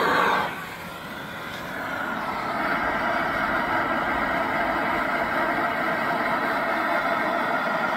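Coleman Exponent Denali liquid-fuel backpacking stove burning with a steady hiss from its pressurized burner.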